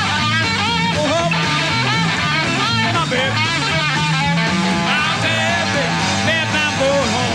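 Rock music playing: a guitar line of bending, wavering notes over a steady bass.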